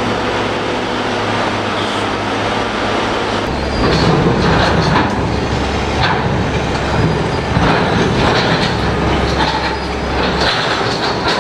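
A hydraulic excavator's diesel engine running, loading up about three and a half seconds in as it drags an overturned steel center-beam flatcar. The car's steel body scrapes and clanks irregularly over the dirt and track.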